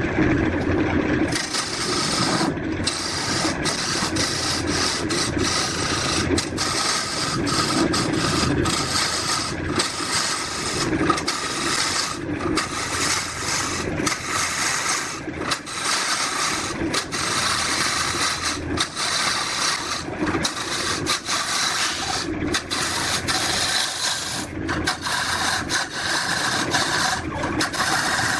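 Wood being abraded in repeated strokes: a continuous scratchy rasping, broken by brief gaps between strokes.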